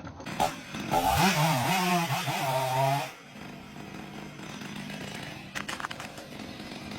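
Chainsaw running at high revs in a cut for about two seconds, its pitch wavering under load. About three seconds in it drops to a quieter steady run, with a few sharp cracks near six seconds.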